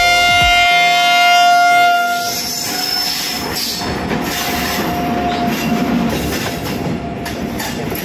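A lone Indian Railways WAG electric freight locomotive sounds its horn in one long, loud blast lasting about two seconds. It then rumbles past over the track close by.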